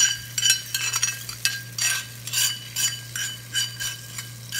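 A spoon scraping and tapping against a small tempering pan to knock the fried mustard seeds and curry leaves into the sambar: a run of short ringing metallic clinks, two or three a second, over a steady low hum.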